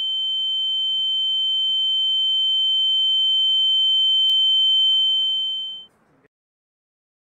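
A single steady high-pitched ringing tone, the ringing-in-the-ears sound effect for a dazed, fainting character. It grows slightly louder, then fades out a little before six seconds in.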